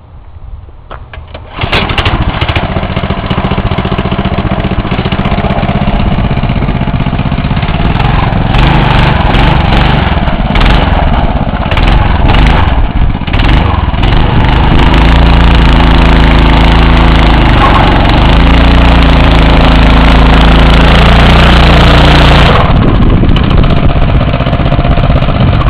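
A 6 HP, 196 cc Tecumseh single-cylinder four-stroke go-kart engine catches about two seconds in and then runs. Its speed rises and falls, then it drops back to a lower speed near the end.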